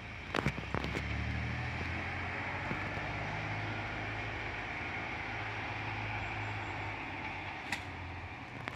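Engine of a small diesel rail vehicle starting up: a few sharp knocks in the first second, then a steady low idle that settles in, with heavy exhaust smoke typical of a cold start.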